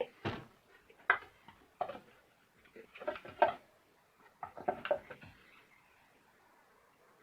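Parts of a drainage pump's housing knocking and clicking against each other as they are fitted together by hand during reassembly: a dozen or so irregular short knocks over the first five seconds, then little.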